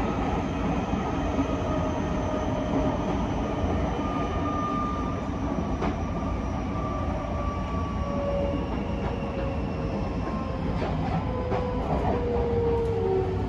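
Tokyo Metro 05 series train heard from inside the car: steady running rumble of wheels on rail under an electric traction-motor whine that falls slowly in pitch as the train slows. A few sharp clicks come through in the second half.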